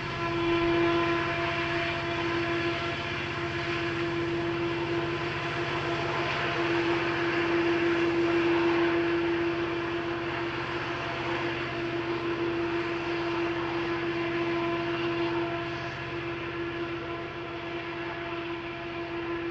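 Diesel-electric helper locomotives pushing at the rear of a heavy coal train on a steep grade, their engines running hard in a steady drone with a strong held tone. The sound grows a little quieter in the last few seconds.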